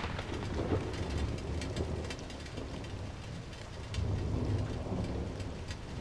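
Steady rain falling on a window, with many small drop ticks and low thunder rumbling that swells about four seconds in.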